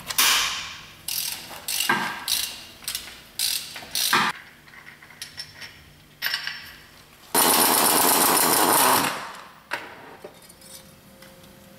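Power ratchet running for about two seconds, spinning out a transmission bell-housing bolt, after a string of sharp metal clanks and clicks from sockets and tools.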